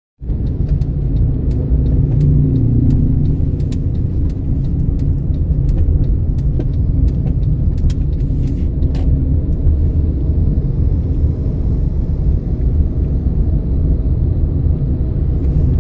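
Car engine and road rumble heard from inside a moving car's cabin, steady and low. Scattered sharp clicks and ticks come through the rumble for roughly the first nine seconds.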